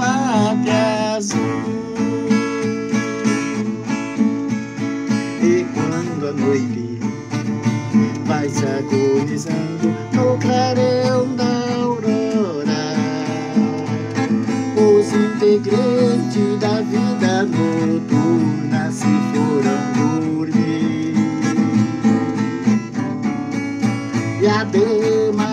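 Acoustic guitar strummed and picked steadily in a slow country-style instrumental passage between sung verses.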